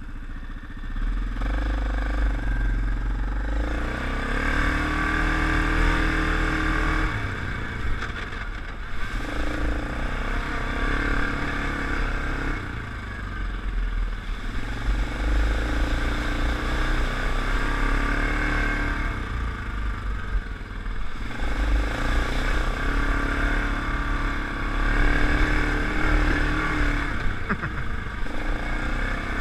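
Yamaha Grizzly 700 ATV's single-cylinder engine running on the move, its pitch climbing and easing off several times as the throttle is worked over the trail.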